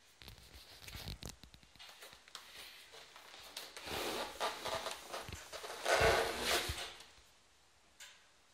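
Large cardboard box being handled and turned over, rubbing and scraping in a run of rustles and small knocks, loudest about six seconds in.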